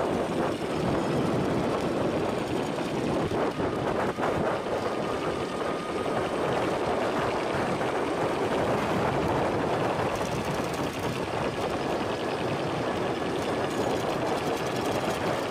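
Steady rushing and rumbling of riding along an asphalt road: tyres rolling and air rushing past the microphone, with a faint steady whine above it.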